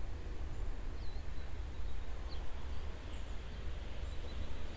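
Outdoor background of wind rumbling on the microphone, with a few faint, short bird chirps.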